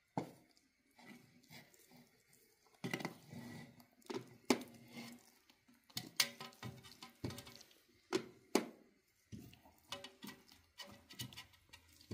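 Hands pressing stuffing into a large fish's belly on a metal tray. There are irregular knocks and clicks as fingers and fish strike the tray, some leaving a short metallic ring, with wet squishing in between.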